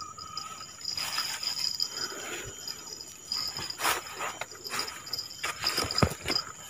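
Insects keep up a steady high-pitched buzzing. Over it come rustling and a few sharp clicks and knocks from a fishing rod, spinning reel and line being handled close by, loudest about four and six seconds in.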